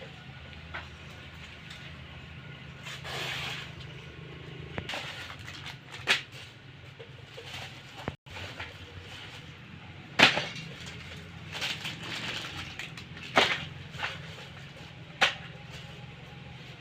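Irregular sharp metal knocks and clanks, about eight in all and spaced unevenly, over a steady low hum. The knocks are the kind made when gearbox parts are tapped and fitted together during assembly.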